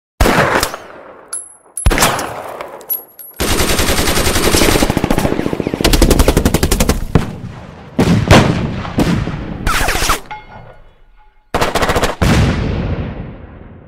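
Machine-gun fire in long rapid bursts mixed with single sharp shots, each ending in an echoing decay, with a short lull about ten seconds in.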